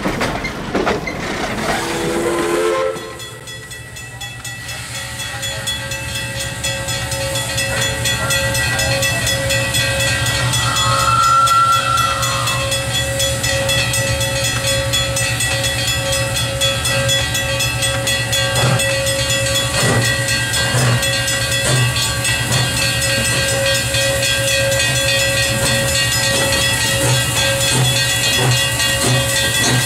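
Steam locomotive venting steam: a loud, steady hiss with whistling tones that builds for several seconds and then holds. A few knocks come about two-thirds of the way through.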